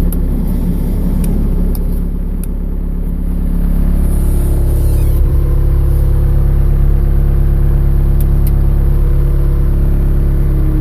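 The 75 hp Cat diesel engine of a Cat 252B3 skid steer loader running steadily, easing off a little then revving up about four seconds in and holding at the higher speed.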